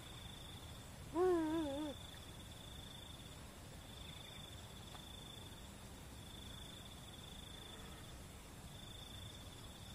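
An insect, cricket-like, trilling on one steady high note in bouts of a few seconds each, with short breaks between. About a second in, a brief wavering voice sound, like a hum, is the loudest thing heard.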